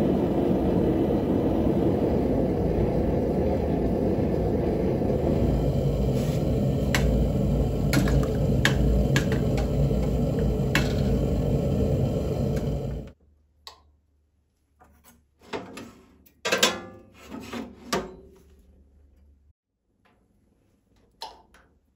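A handheld gas torch burns with a steady, loud rushing roar as it heats a blade in a small block forge, with a few sharp ticks partway through. The roar cuts off suddenly about two-thirds of the way in, and a few short knocks and clatters follow.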